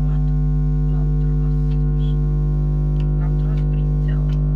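Loud, steady electrical mains buzz, a low hum with a stack of overtones, with faint scattered clicks over it.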